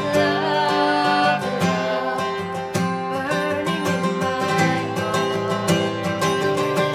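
Acoustic guitar strummed steadily with a woman singing over it; her held notes waver in the first second and a half.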